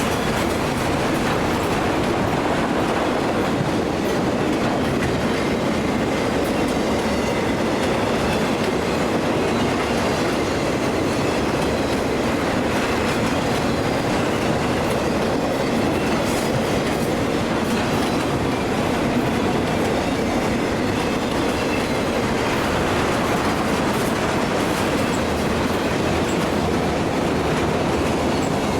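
Train cars rolling steadily past, with the wheels rumbling and clattering over the rails and no horn.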